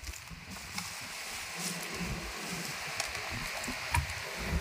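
Faint rustling of bubble wrap and light handling knocks as a shrink-wrapped plastic cutting board is moved and laid down on a tiled floor, with a few small clicks, over a steady background hiss.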